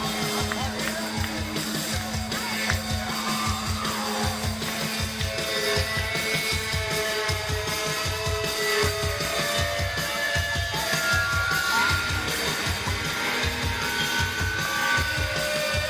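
Live rock band playing the instrumental intro of a song: guitars over a steady drum beat, recorded from within the crowd.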